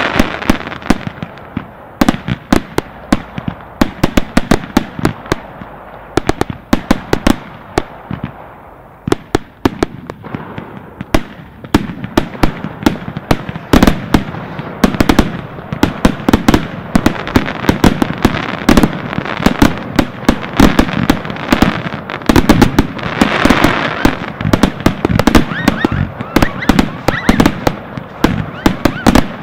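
Aerial consumer fireworks going off in quick succession: many sharp bangs and crackles every second as shots rise and burst. They thin out for a few seconds in the middle, then come thick and fast again.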